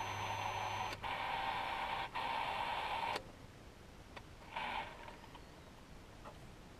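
A steady hum from the car with the ignition switched on cuts off suddenly about three seconds in as the power goes off. A brief sound follows about a second and a half later, along with a few faint clicks.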